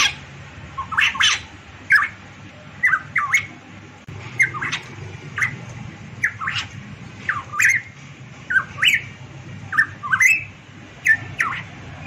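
Variable pitohui calling repeatedly: a string of short, sharp notes that sweep up and down, about one or two a second, some in quick pairs.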